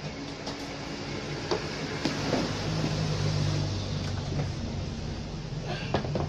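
Knocks and clicks of a CRT television's plastic cabinet being gripped and turned around by hand, the sharpest knock near the end, over a steady low drone.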